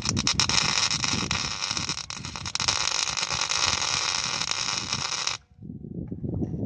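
Electric arc welder laying a weld bead: a steady crackling hiss for about five seconds that cuts off suddenly.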